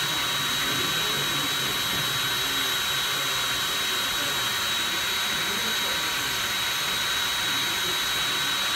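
Hair dryer running steadily: a constant rush of blown air with a thin, steady high-pitched whine from its motor.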